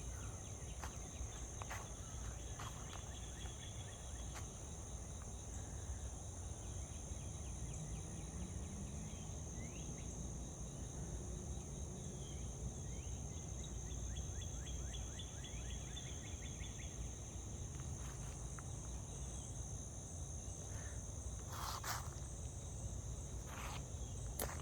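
A steady, high-pitched chorus of insects, with a low rumble underneath and a few short bird chirps. There are a couple of sharp clicks near the end.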